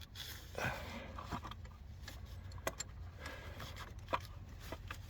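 Scattered light metallic clicks, knocks and a brief scrape of hand tools and parts being worked in a car's engine bay, while a thermostat is being removed.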